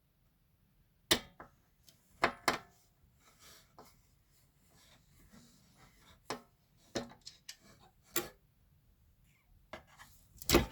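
Scattered sharp clicks and knocks of hands and tools working on a speaker cabinet as a woofer driver is being taken out, at irregular intervals with a louder knock right at the end.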